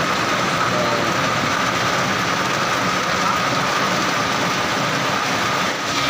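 Small gasoline vehicle engine running steadily just after being restarted, a steady hiss with a constant high-pitched whine; it now runs after the burnt control box that kept it from starting was dealt with.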